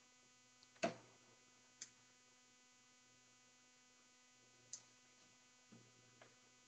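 Near silence: a faint steady electrical hum with a few scattered soft clicks, the sharpest about a second in.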